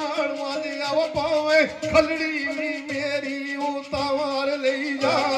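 A man sings Pahari sher (sung folk verse) into a microphone over a steady drone from the accompanying instruments, a sitar among them. A few sharp thumps stand out at about one, two and four seconds in.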